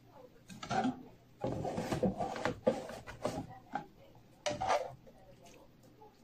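Metal wire skimmer scraping and knocking against a pan while scooping cooked pieces out of the cooking liquid: a short scrape about half a second in, a longer run of scraping and clinks from about a second and a half to three and a half seconds, and another short scrape near four and a half seconds.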